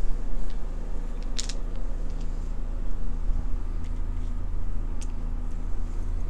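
Tarot cards being gathered up off a wooden table by hand: a couple of soft slides and taps, about a second in and again near the end, over a steady low hum.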